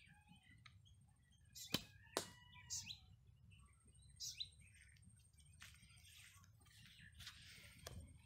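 Faint outdoor ambience with scattered bird chirps and short whistled calls, and two sharp clicks about two seconds in.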